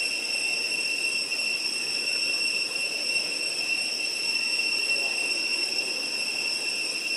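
A chorus of insects droning steadily at a high pitch, with a fainter murmur of background noise beneath it.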